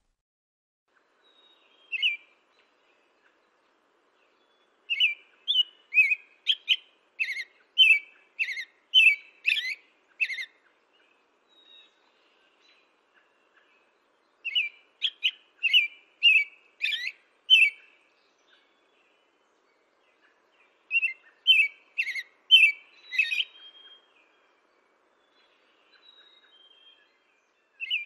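American robin singing: runs of short, clear whistled notes with a few high squeaky notes mixed in, in three bursts of song several seconds apart and a lone note or two between them.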